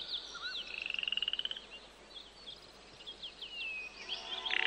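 Frogs calling in rapid trills, each about a second long, with birds giving short rising and falling chirps over them.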